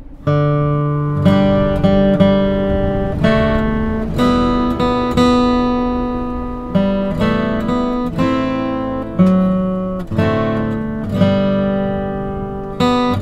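Acoustic guitar music: chords strummed about once a second, each left to ring and fade.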